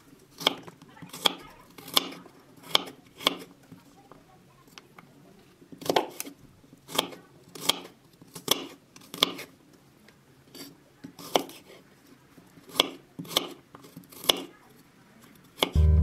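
Chef's knife chopping garlic cloves on a wooden cutting board: a series of sharp knocks, irregular, about one or two a second, with a couple of short pauses. Acoustic guitar music comes in right at the end.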